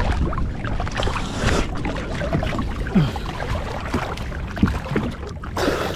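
Small waves sloshing and splashing against a fishing launch's hull right at the microphone, with irregular gurgles and slaps over a steady low rumble.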